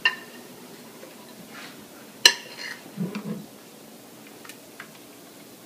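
Kitchen utensil clinking against a mixing bowl and jar while cream is scooped out, a few scattered knocks with one sharp, ringing clink a little over two seconds in.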